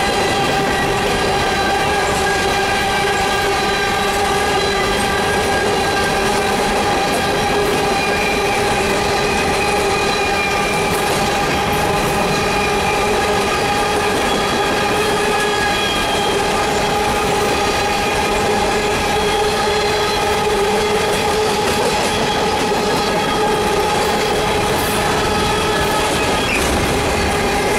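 Empty coal hopper cars rolling past on steel rails: a steady clatter of wheels on rail with a continuous squeal from the wheels held throughout.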